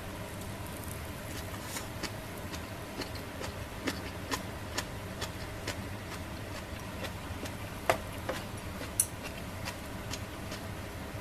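Irregular sharp pops and ticks, about two a second, the loudest about eight and nine seconds in, over a steady low hum: squid crackling as it grills on a wire net over a solid-fuel mini fire pit.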